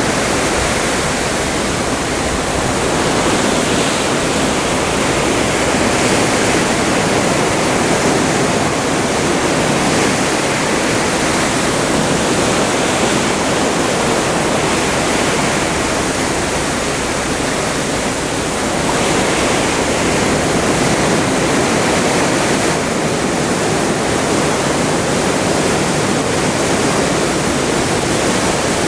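Atlantic seawater rushing and churning along the hull of a cruise ship under way: a steady, dense rush that swells and eases gently every few seconds.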